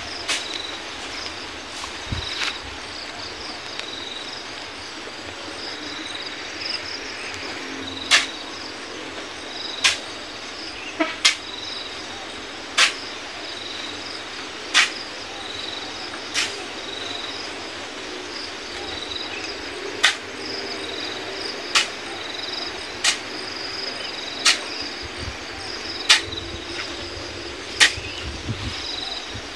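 Sharp metallic knocks every one to two seconds as sand is shovelled by hand into a steel dump truck body. Insects chirp in a steady high pulse about once a second underneath.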